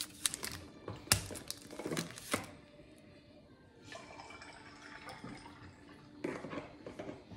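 Chocolate-bar wrapper crinkling as it is opened, with sharp cracks as squares of dark chocolate are snapped off the bar in the first couple of seconds; a faint steady hiss follows.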